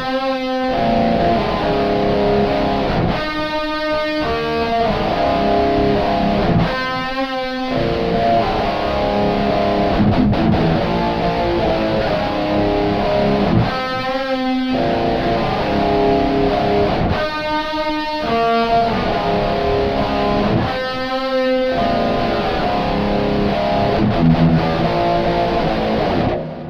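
Heavily distorted electric guitar, an Ibanez RG4720 through a Boss GT-6 effects processor, playing a grunge riff whose chord pattern comes round about every three and a half seconds. It stops abruptly near the end.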